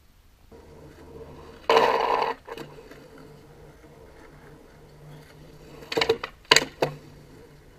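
Skateboard clacking against a concrete curb: several sharp hits in quick succession about six seconds in as the board strikes and grinds the ledge. A loud half-second scrape comes near two seconds in.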